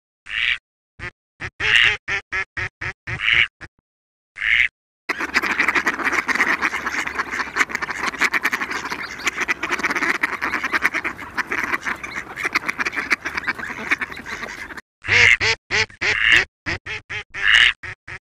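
Mallard quacking, played as a lure for hunting mallards: single quacks spaced about a second apart, then about ten seconds of rapid, unbroken chattering quacks, then single quacks again near the end.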